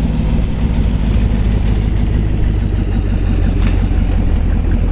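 The GM 350 V8 crate engine of a 1929 Ford Model A pickup hot rod running with a low, steady exhaust note as the truck drives past.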